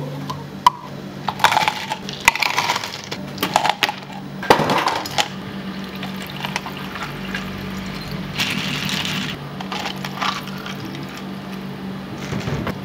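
Café food-prep handling sounds: a quick run of sharp clinks and taps of dishes, containers and utensils in the first few seconds, then a few softer handling and rubbing noises, over a steady low hum.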